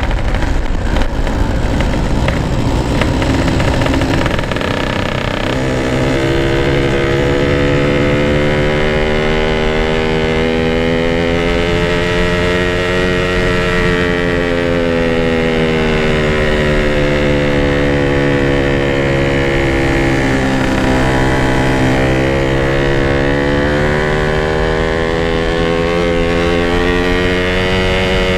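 Yamaha RX-King's 135 cc two-stroke single-cylinder engine running under way through a modified stock exhaust. The sound is rough and noisy for the first few seconds. Then a clear engine note settles in, its pitch slowly climbing and easing with the throttle.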